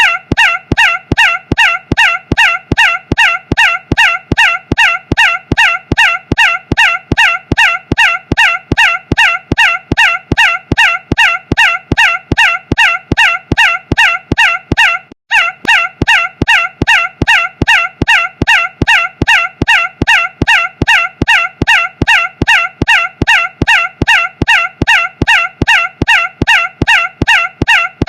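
A short, loud, squawking fowl-like call repeated evenly about two to three times a second as a loop, with a brief break about halfway through.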